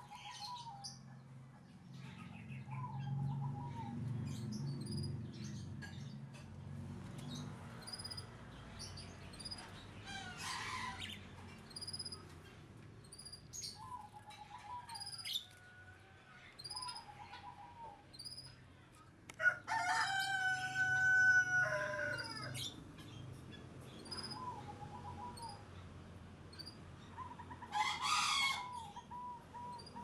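A caged plaintive cuckoo flapping its wings against the cage bars in short bursts, about a third of the way in and again near the end. A rooster crows once, the loudest sound, about two-thirds through, and other birds chirp and call around it.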